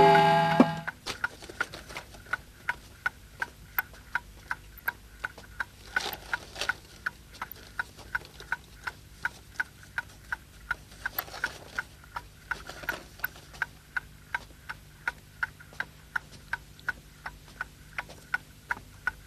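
Clock ticking in a fast, steady, even rhythm, marking the exam time running out. A held music chord ends in the first second.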